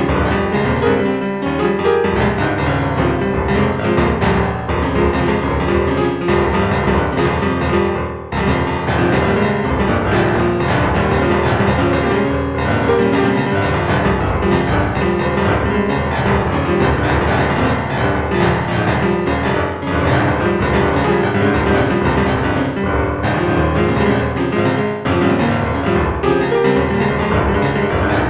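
Instrumental background music featuring piano.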